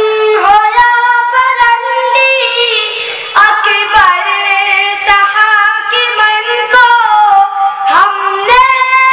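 A boy singing a nazm solo into a microphone: a high child's voice holding long, gliding notes that break off between phrases.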